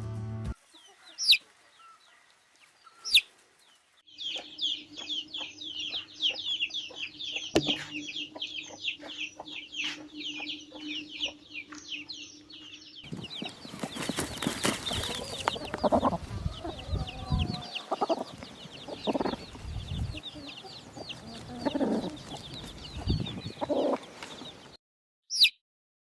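Domestic chicken chicks peeping: a few lone high peeps at first, then a dense chorus of many chicks from about four seconds in, with a steady low hum underneath. About halfway through, lower hen clucks and rustling join the peeping.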